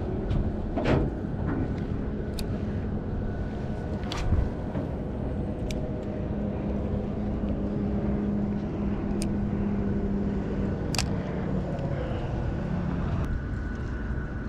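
A motor hums steadily over a low rumble, strongest through the middle, with a few sharp clicks scattered through it.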